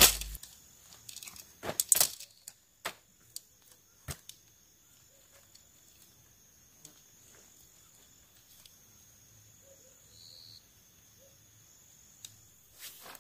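Tent poles being handled and unfolded, their sections clacking against each other in a few sharp clicks during the first few seconds, then quieter handling.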